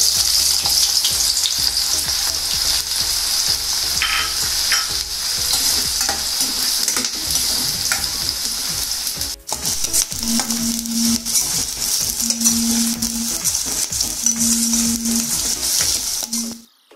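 Sliced red onions going into hot oil in a stainless steel kadai and sizzling as they fry, with a steel spoon clicking and scraping against the pan as they are stirred. The sizzle cuts off abruptly near the end.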